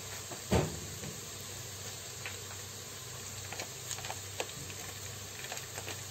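Onions, garlic and whole spices frying in the open bowl of a multicooker: a steady sizzle with scattered small pops and crackles. A single soft knock about half a second in.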